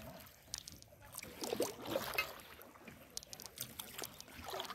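Canoe paddles splashing and dripping in river water, in irregular strokes, with a few light clicks and knocks.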